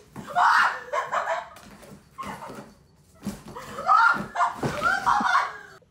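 A small dog yapping and whining in short, pitched calls: a few in the first second, one about two seconds in, then a close run of calls in the second half.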